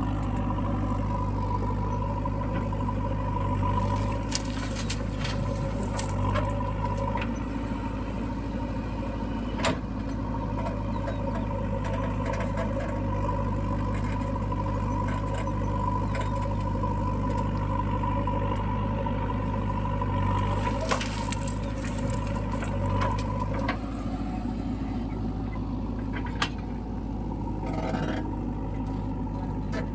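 Diesel engine of a JCB backhoe loader running steadily, with a steady high whine over the hum. A couple of sharp knocks stand out, about ten seconds in and again near the end.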